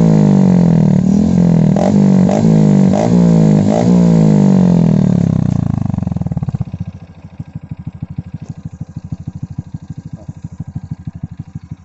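Honda 125 cc single-cylinder motorcycle engine breathing through an open Taikom aftermarket exhaust with the silencer removed, revved up and down several times with sharp pops. About six seconds in it drops back to idle, each firing pulse heard separately.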